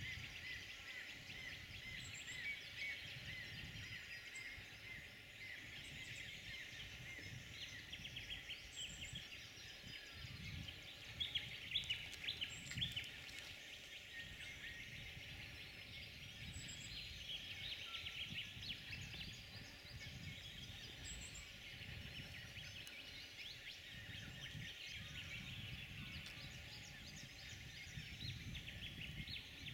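A dense chorus of wild birds chirping and trilling throughout, with a few louder calls about a third of the way in, over a faint low rumble.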